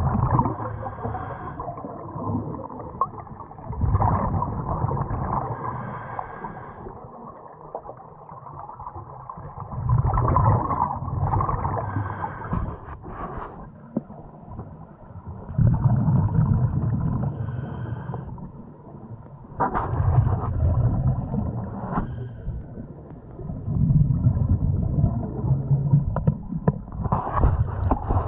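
Muffled underwater noise from a swimmer with the camera: low rumbles and bubbling swell up every four to six seconds, with short hisses in between.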